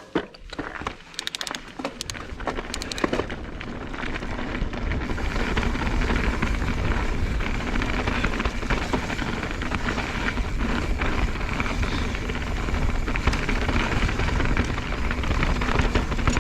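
Mountain bike riding down a dirt trail: tyre and trail noise with wind rushing on the bike-mounted microphone, building after about four seconds into a steady loud rush, with a few clicks and rattles before it.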